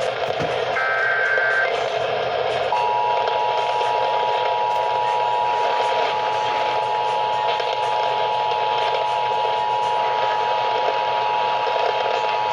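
Emergency Alert System signal over the radio: a short buzzy burst of the digital header about a second in, then the steady two-tone attention signal from about three seconds on, over a hiss of static, heralding a severe thunderstorm warning.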